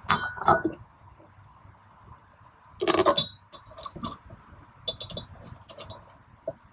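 Metal parts and hand tools clinking: a bolt being fitted into the billet aluminum bowl stuffer on the jet pump bowl, with a louder ringing metallic clatter about three seconds in as a tool is handled on the workbench, then a few light clicks.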